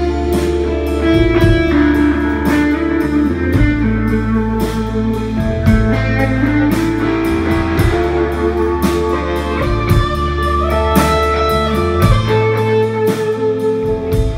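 Live rock band playing: electric guitars ring out over bass guitar and a drum kit keeping a steady beat.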